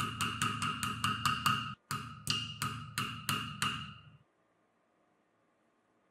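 A rapid run of sharp, evenly spaced knocks, each with a short ringing tone, about five a second. They break off briefly, go on more slowly at about three a second, fade and stop.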